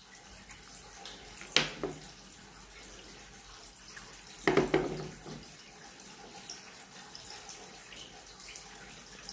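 Bristle brush scrubbing coffee grounds off the Kinu M47 hand grinder's conical steel burr, over a steady hiss. Two sharp knocks come as the parts are handled, one about a second and a half in and a louder one about four and a half seconds in.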